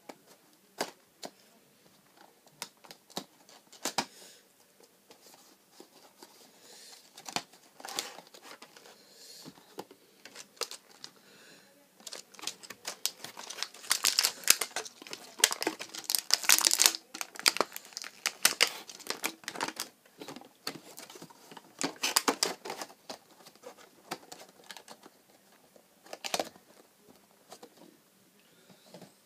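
Toy packaging being crinkled and torn open by hand: scattered crackles and clicks, growing into a dense, louder stretch of crinkling through the middle, then thinning out again.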